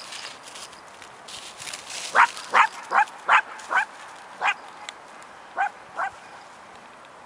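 Icelandic Sheepdog barking: a quick run of five sharp barks, then three more spaced out, each short and high. These are alert barks at birds over the field.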